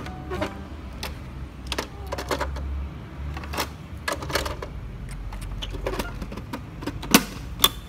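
Hard plastic clicks and knocks as a toy camper van's door and side panel are opened and shut and plastic figures are set inside, with two sharper snaps near the end.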